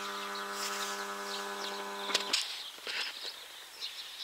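Camcorder zoom motor humming at one steady pitch as the lens zooms in, stopping suddenly with a click after about two and a half seconds. Birds chirp faintly in the background.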